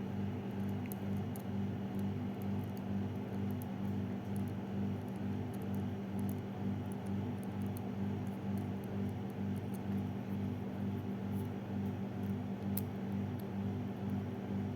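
Faint, scattered small clicks and ticks of tweezers working wires into a sealed multi-pin connector plug, over a steady low electrical hum that pulses a few times a second.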